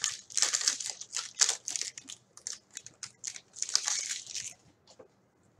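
Hockey trading cards being shuffled and flipped by hand: a quick run of papery slides and snaps that thins to a few light clicks after about four and a half seconds.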